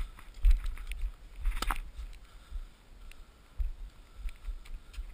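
A tennis ball struck sharply by a racket about a second and a half in, with a few fainter knocks. Low rumbling buffets of wind on the head-mounted camera's microphone run underneath.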